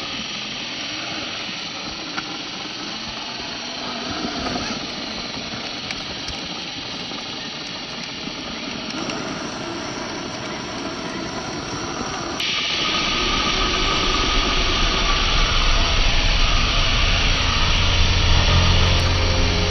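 Steady rushing of a shallow rocky stream mixed with the whir of a 1/10-scale RC crawler's electric motor and gears. About twelve seconds in, the sound switches abruptly to a louder rush with a low hum underneath.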